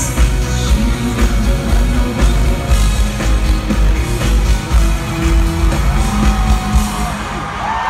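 Live pop music from an arena concert's sound system, with a steady heavy bass beat under a dense, full mix.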